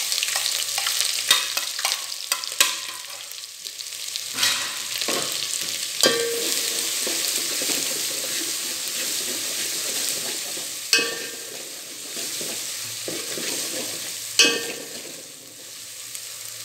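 Garlic-ginger paste sizzling in hot oil in a steel pot, stirred with a metal ladle that knocks and scrapes against the pot several times, one of the sharpest knocks near the end.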